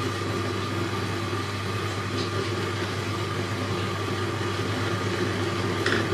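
Steady low mechanical hum, like a motor running, with a few light scrapes of a spatula stirring the potato and eggplant curry in the metal pan, one about two seconds in and one near the end.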